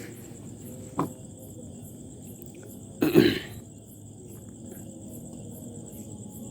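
Crickets chirping steadily in a fast even pulse. There is a sharp click about a second in and a short cough about three seconds in.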